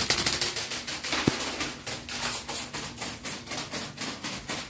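Rubber-band-powered toy ornithopter in flight, its flapping wings clattering in a rapid, even rhythm of about six beats a second. One sharper knock comes just over a second in.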